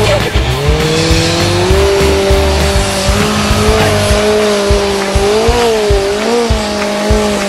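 A Formula Offroad race buggy's engine at full throttle as it churns up a steep dirt hill. Its pitch rises quickly at the start, then holds high and steady with two brief wobbles near the end, over music with a regular beat.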